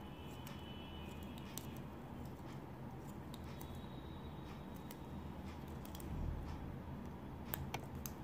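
A few faint clicks and light handling noises from a tatting shuttle and thread being worked by hand, over a steady low hum of room noise.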